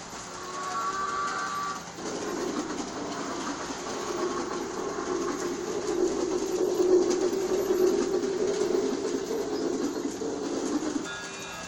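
G-scale toy steam train running on its track, its motor and wheels making a steady rumbling clatter. Brief tonal sounds come at the start and again near the end.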